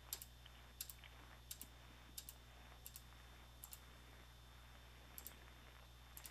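Faint clicking of a computer keyboard and mouse: short paired clicks about every 0.7 s, then a pause and two more pairs near the end.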